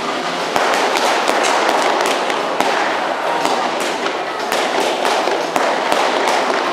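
Stunt-show pyrotechnics: a flame burst from a stack of barrels, with a rushing noise that starts about half a second in and a run of sharp bangs and crackles over it.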